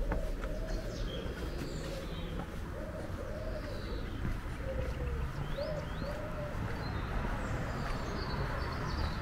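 A pigeon cooing over and over in short arched notes, with small birds chirping higher up and a steady low background rumble.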